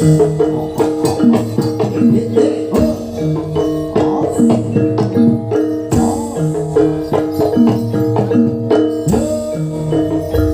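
Javanese jaranan gamelan music: struck metallophones and gongs play a short phrase that repeats about every three seconds, over steady drumming.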